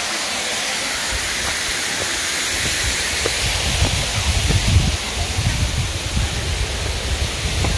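Steady rushing hiss of water pouring over a stone dam spillway as a small waterfall. From about three seconds in, irregular low rumbles on the microphone join it.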